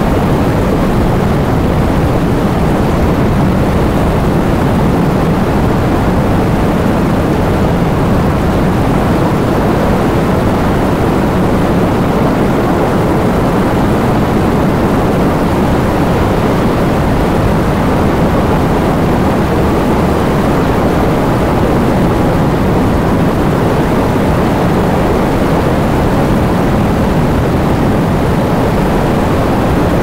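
Super heavy rainstorm pouring down with wind: a steady, loud rush of rain and wind, heaviest in the low end, with no single drops or gusts standing out.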